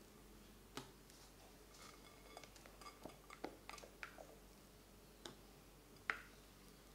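A spatula and wire whisk tapping and scraping against a glass mixing bowl as meringue is folded into sponge-cake batter, with soft squishes from the meringue. The light clicks come at irregular times, and the sharpest comes about six seconds in.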